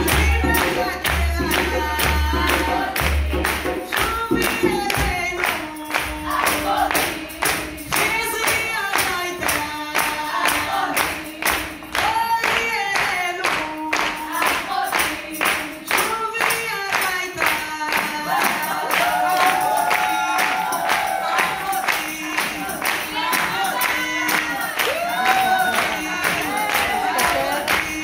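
Flamenco song by a group of women's voices over steady rhythmic hand clapping (palmas) and a tambourine.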